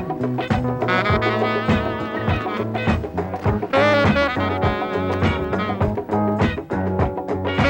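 Upbeat swing-style music with a horn section of brass and saxophones over a steady beat and walking bass line.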